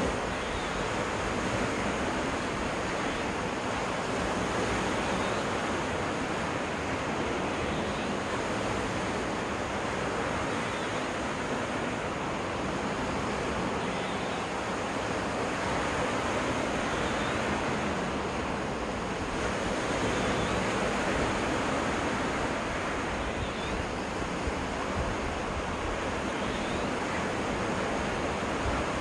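Lake waves washing onto a freshwater beach in a steady rush of surf.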